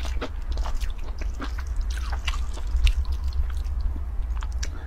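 Close-up eating sounds: noodles being chewed, with scattered small clicks and wet sounds as chopsticks stir and lift noodles in a metal pot, over a steady low hum.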